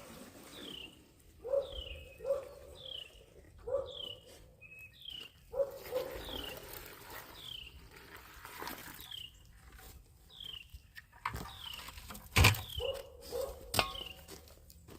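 A dog barking repeatedly in short pairs, with a bird giving an even series of short, falling chirps. A couple of sharp knocks come near the end.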